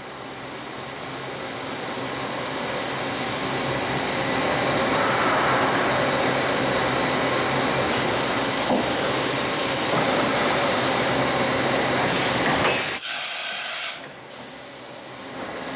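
Mazak horizontal machining center running with coolant spraying inside its enclosure: a steady mechanical rush and hiss that builds over the first few seconds, turns brighter and hissier for a few seconds, then cuts off sharply about fourteen seconds in.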